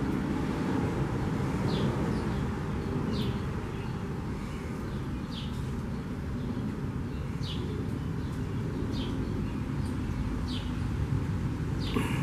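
House sparrow chirps: short, high, slightly falling notes repeated every second or two over a steady low background rumble.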